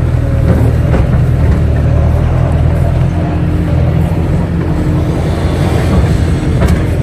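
Kato crawler excavator's diesel engine running steadily under load from inside the cab as the boom and bucket swing, with a steady whine joining about three seconds in.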